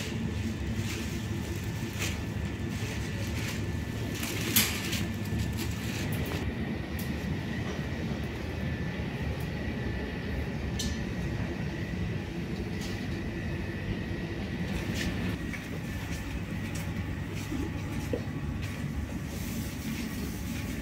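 Wire shopping cart rolling and rattling over a supermarket floor: a steady low rumble with scattered clicks, and a sharper knock about four and a half seconds in. A faint steady high tone runs underneath.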